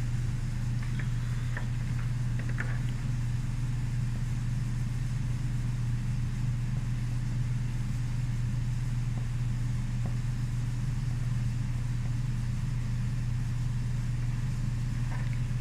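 A steady low hum runs throughout, with a few faint light ticks over it.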